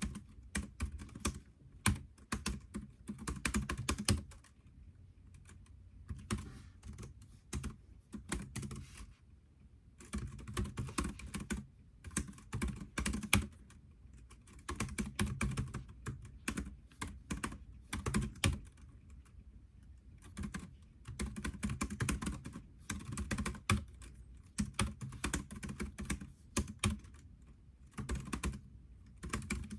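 Typing on a computer keyboard: quick runs of key clicks in bursts of a few seconds, broken by short pauses.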